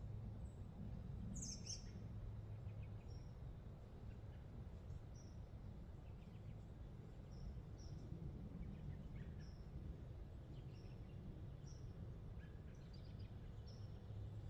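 Short, high bird chirps repeating about once a second, one louder near the start, over a faint low steady rumble of background noise.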